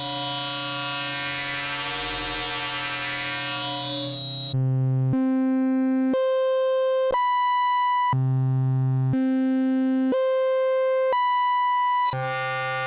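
DIY Arduino wavetable additive Eurorack oscillator sounding a steady FM-modulated tone with shimmering overtones. About four and a half seconds in it changes to a series of steady tones, each held about a second, jumping in pitch and timbre as its knobs are turned.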